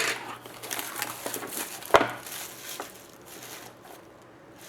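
A sealed trading-card box and its wrapper being opened by hand: crinkling and rustling of wrapper and cardboard, with one sharp knock about two seconds in.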